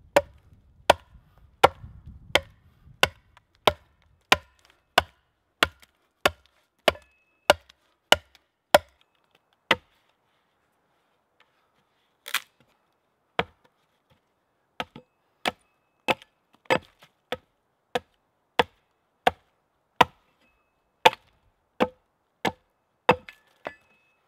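Steel axe hewing a split wooden rafter on a chopping block: sharp chops in a steady rhythm of about three every two seconds, stopping for about two seconds a third of the way through, then resuming.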